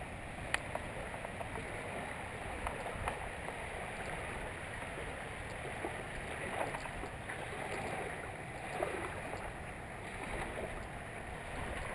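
Steady, fairly quiet outdoor background noise without a clear single source, with a few faint ticks and brief faint chirp-like sounds.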